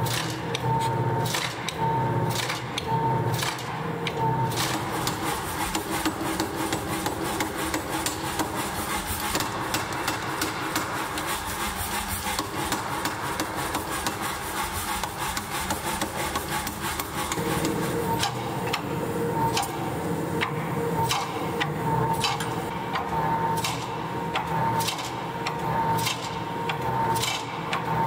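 Power hammer pounding red-hot steel between its dies: a fast, continuous run of metallic blows, with a ringing tone coming and going in the first few seconds and again from past the middle.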